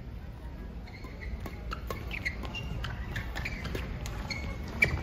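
Athletic shoes squeaking on a badminton court floor, several short high chirps, with a few light clicks of rackets striking the shuttlecock. The sharpest chirp comes near the end.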